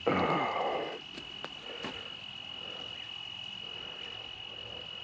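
Crickets trilling: one steady, unbroken high-pitched tone. A short, louder noisy sound fills the first second, and a few faint clicks follow.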